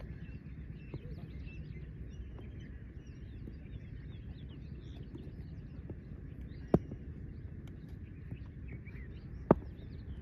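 Outdoor ambience: many small birds chirping over a steady low rumble. Two sharp clicks stand out, one about two-thirds of the way through and a louder one near the end.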